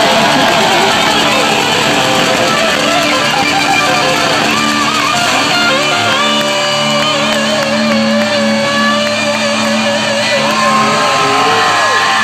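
Live heavy rock band playing loud: distorted electric guitars, one carrying a lead line of wavering, bending notes, over bass and drums, heard from the crowd in a large hall.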